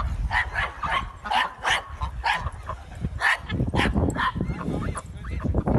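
A small dog yipping and barking again and again in short, high, irregularly spaced calls, about a dozen in all.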